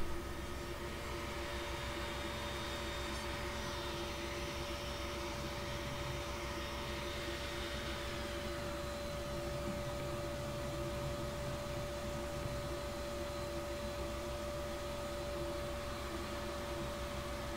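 Electric shop-tool motor running steadily: a constant hum at an even level with no cutting or bites into wood. A faint high whine in it drops away in pitch about eight seconds in.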